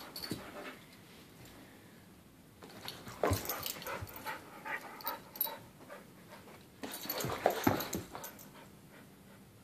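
Two dogs play-fighting on carpet: scuffling and short dog vocal sounds in two bouts, one starting about three seconds in and another about seven seconds in, after a quieter start.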